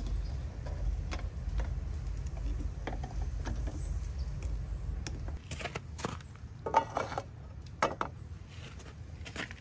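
Steel kebab skewers of chicken clinking and tapping as they are set down across a charcoal grill, a scatter of short sharp metallic clicks, some with a brief ring, the loudest about two-thirds of the way through. A low steady rumble underlies the first half.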